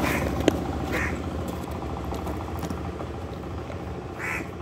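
Motorcycle engine idling steadily, with a sharp click about half a second in as the cardboard box is handled.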